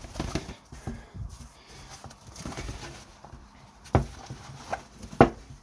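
Cardboard box being handled as a hat is pulled out of it: scattered rustling and light knocks, then two sharper thumps near the end, the second the loudest.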